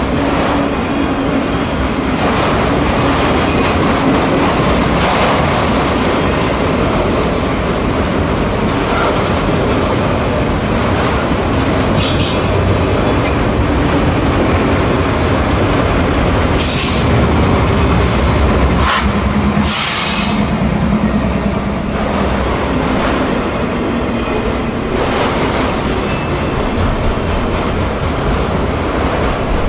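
A freight train of autorack cars rolls by close at hand, with steady wheel and rail noise. A few brief high-pitched wheel squeals cut in, the strongest about two-thirds of the way through.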